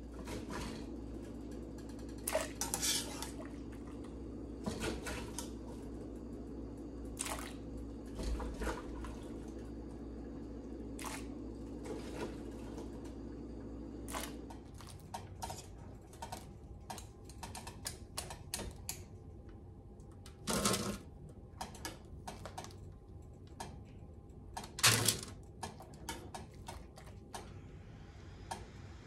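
Metal spoon clinking and knocking against a stainless steel pot and mixing bowl as diced potatoes are blanched: tipped into boiling water and scooped back out. A steady low hum runs under the clinks and stops about halfway through.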